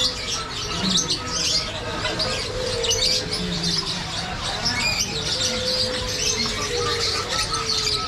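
Many caged songbirds chirping at once, a dense, unbroken chatter of short high calls, with fainter long, lower notes that rise and fall slightly every second or two.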